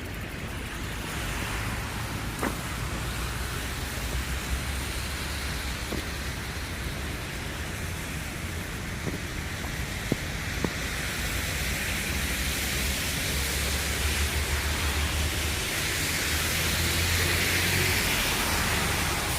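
Wind buffeting the microphone, a steady low rumble under a rushing hiss that grows louder over the last few seconds. A few faint clicks sound here and there.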